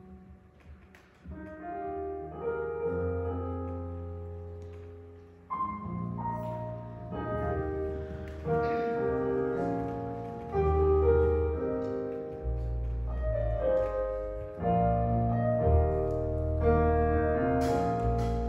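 Keyboard music in a church service, held chords over a bass line that swell from soft to full. Cymbals and drums start to come in near the end.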